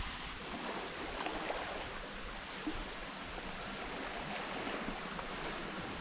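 Steady rush of water, an even hiss with no distinct events.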